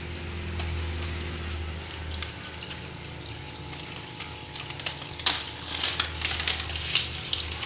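Aquarium filter and aeration running: water bubbling and trickling over a steady low hum. From about halfway, irregular sharp clicks and knocks join in, the loudest a little after halfway.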